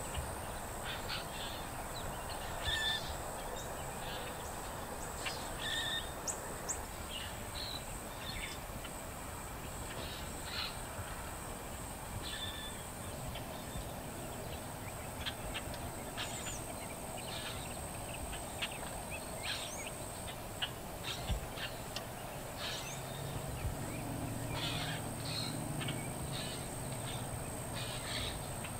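Woodland ambience: birds calling in short scattered notes over a steady high-pitched insect drone and a constant background hiss. A low hum comes in during the last few seconds.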